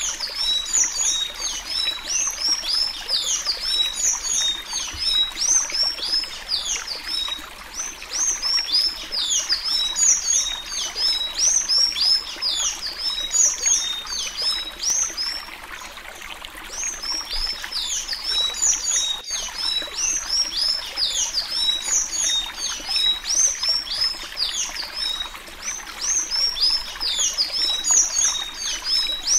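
Sanhaço-azul tanager singing the 'suí suí' song type of Alagoas: a fast, continuous run of high, down-slurred squeaky notes with a few short lulls, over a steady background hiss.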